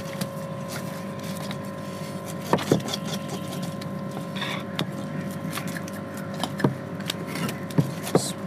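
A large curved knife scraping scales off a tilapia on a wooden log block, with a few sharp knocks of the blade against the wood. A steady hum runs underneath.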